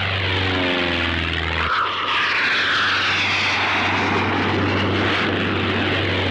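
Single-engine propeller light aircraft flying, its piston engine droning steadily; the engine note steps lower about two seconds in.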